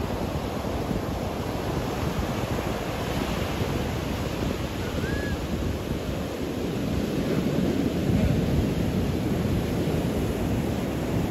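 Surf breaking over a rocky shore, a steady rush of waves with wind buffeting the microphone, swelling a little about eight seconds in. A brief faint chirp sounds once about five seconds in.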